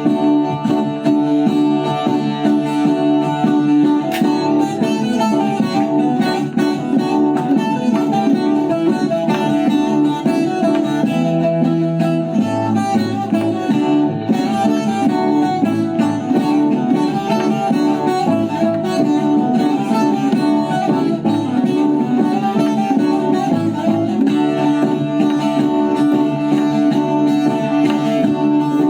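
Instrumental music led by plucked strings, with sustained notes over a shifting bass line.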